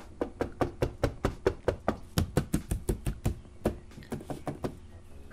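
Gloved fingers rapidly knocking on the bare steel outer panel of an Audi 80 rear door, about five or six knocks a second, growing fainter after about four seconds. It shows how the door sounds before any sound insulation is fitted.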